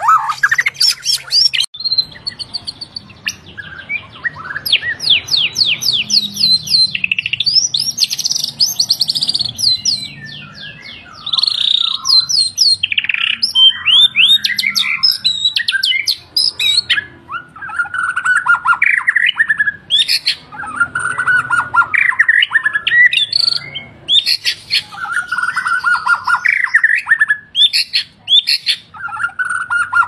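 Caged shama (murai batu) singing loudly: a varied song of fast runs of whistled notes mixed with harsh, rattling phrases. There is a brief pause about ten seconds in, after which the bird sings again in repeated phrases.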